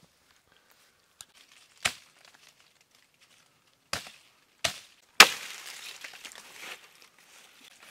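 Dry fallen leaves crackling and rustling as they are handled and trodden: a few short, sharp crunches, then, about five seconds in, the loudest crunch running into a rustle of leaves swept aside for about two seconds.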